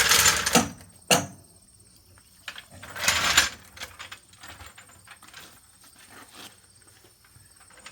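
Handling noises: a short burst of scraping or rustling, a single sharp click about a second in, a second burst of scraping around three seconds, then only faint small ticks.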